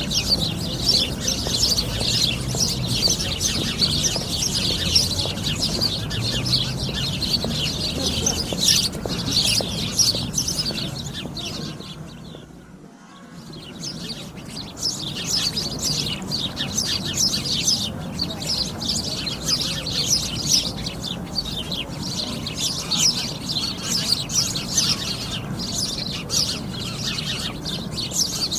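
A flock of sparrows chirping continuously, many short overlapping chirps at once. The chorus fades out briefly a little before halfway and then returns at full strength.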